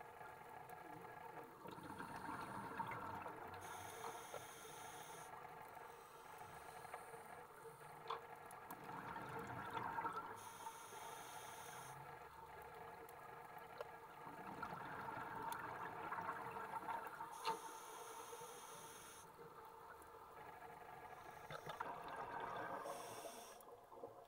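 Scuba regulator exhaust heard underwater: exhaled bubbles gurgle in four swells several seconds apart, keeping time with slow breathing, over a steady faint hum and scattered faint clicks.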